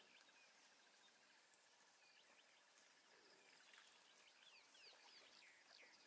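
Near silence: faint wild ambience, with a steady faint high trill and a few soft, falling bird chirps, mostly in the second half.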